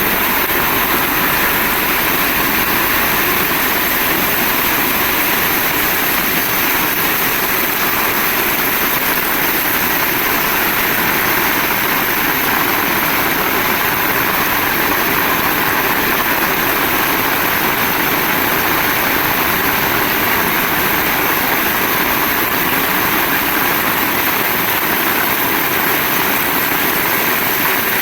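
Heavy rain falling without a break: a dense, steady hiss with no thunder or separate hits.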